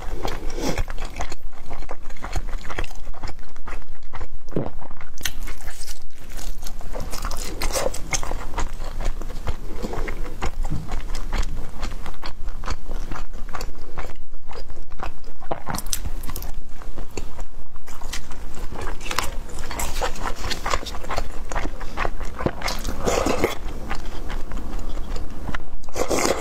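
A person biting and chewing food close to the microphone, mukbang-style, with many small irregular mouth clicks.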